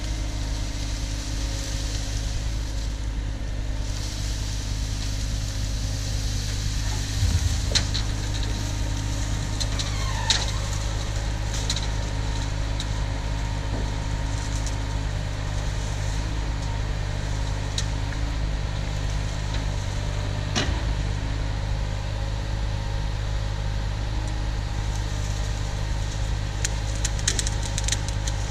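Cat 304 mini excavator's diesel engine running steadily, with occasional clunks and a brief rising squeal about ten seconds in.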